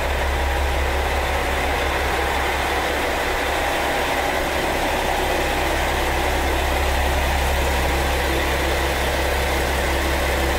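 KiHa 40 diesel railcar's underfloor engine idling steadily while the railcar stands at the platform, a constant deep drone.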